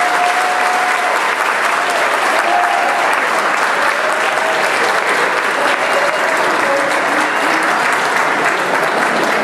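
Large audience applauding steadily and loudly, with a few voices calling out over the clapping.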